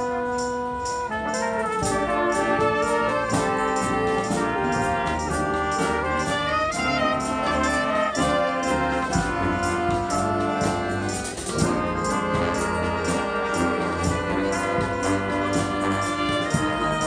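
Live street brass band playing: trumpets and trombones carry a melody in parts over a steady percussion beat of about three strokes a second.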